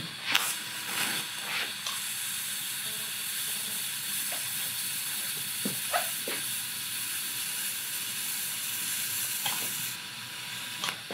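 TIG welding arc on a thin stainless steel exhaust pipe joint, fused without filler rod: a steady hiss for about ten seconds with a few faint ticks. Near the end the arc stops and a quieter hiss of the argon post-flow carries on.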